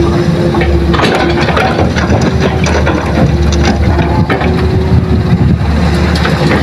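Hitachi hydraulic excavator's diesel engine running steadily under load, with scattered knocks and rattles of soil and clods falling into a steel dump truck bed as the bucket tips its load.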